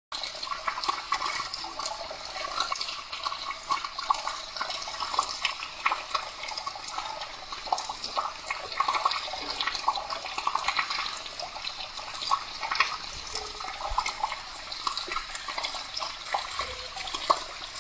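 Dirty brown carpet-cleaning waste water gushing from a hose through an open PVC ball valve and splashing onto concrete in a steady, uneven stream.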